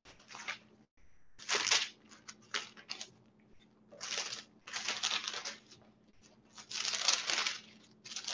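Thin Bible pages being turned by hand. About five separate dry rustles come a second or so apart, with short quiet gaps between them.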